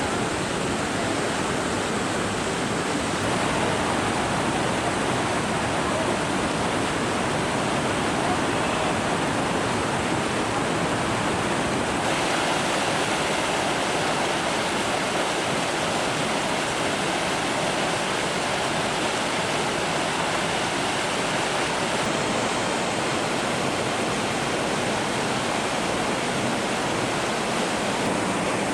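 Datanla waterfall: a steady, dense rush of falling water, its tone shifting abruptly a few times.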